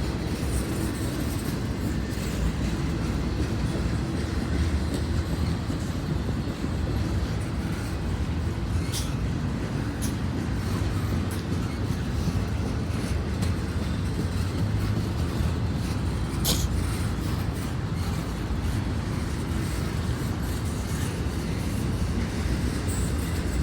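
Intermodal freight train rolling slowly past, a steady low rumble of wheels on rail. Two sharp clicks stand out, one about nine seconds in and another about sixteen seconds in.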